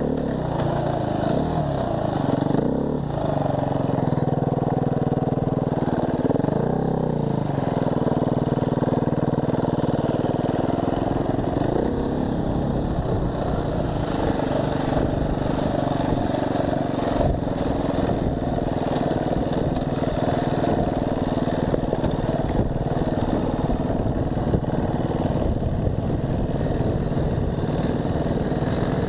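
Dirt bike engine heard on board, its pitch dipping and rising twice in the first several seconds as the throttle is worked, then running on a steadier, rougher note for the rest of the ride.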